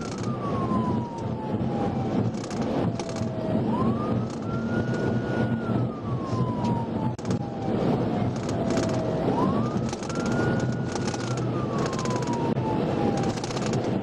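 Police cruiser siren in wail mode, heard from inside the pursuing cruiser. Each sweep rises quickly, holds at the top for a moment, then slides slowly down, repeating about every five and a half seconds over heavy road and engine noise at high speed.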